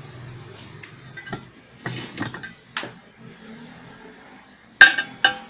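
Small metal parts and tools clinking and knocking as nuts are fitted onto bolts. A few light clinks come early, and two sharp ringing metal clinks near the end are the loudest.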